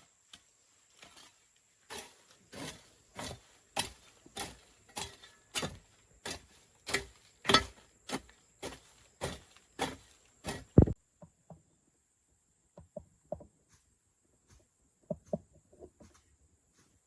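A tool striking wood in steady blows, about one and a half a second, for about nine seconds. It stops abruptly, and a few faint, scattered knocks follow.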